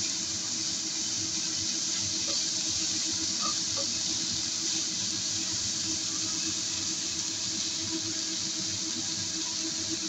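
Steady sizzling of fava beans and chopped preserved greens frying in a nonstick pan, with a steady hum underneath.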